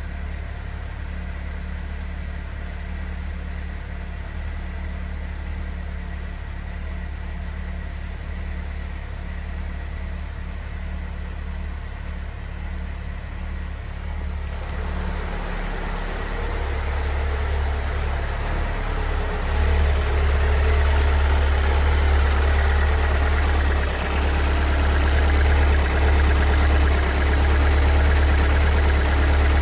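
Kia Sorento's 2.2-litre diesel engine idling from a cold start, steady, without the loud knock yet. It grows louder and fuller about halfway through, with a further step up about 20 seconds in.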